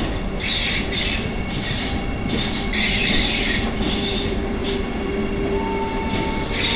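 Vande Bharat Express electric trainset rolling slowly through the station with a steady low rumble. Over it comes a run of high squeals at the wheels, about eight or nine short bursts, the loudest about three seconds in.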